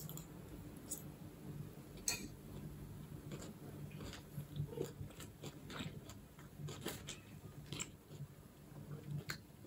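Faint chewing and mouth sounds of someone eating a spoonful of rice pulao, with irregular soft clicks.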